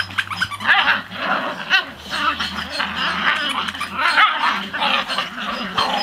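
Shetland sheepdog puppies yipping and whining at play, a continuous jumble of short high cries from several pups at once.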